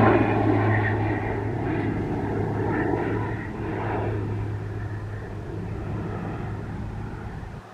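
PZL-130 Orlik turboprop trainers flying past, their steady propeller drone fading away as they recede, then dropping off suddenly near the end.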